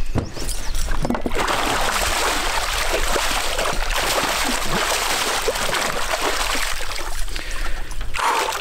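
A netted muskie thrashing in a landing net held in the water at the boat's side, splashing hard and without a break. The splashing starts about a second in and dies down shortly before the end.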